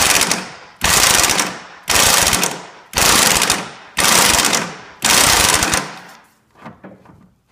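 Impact wrench hammering in six short bursts about a second apart, tightening the nut on a strut's top stud to draw the strut up through a caster/camber plate. The bursts stop about five seconds in, leaving a few light clicks.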